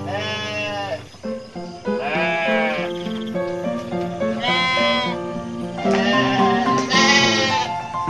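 Garut sheep bleating four times, each call rising then falling in pitch, over background music of steady held notes.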